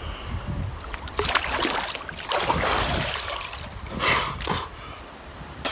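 River water splashing and sloshing as a person ducks under and comes back up, in two spells of splashing.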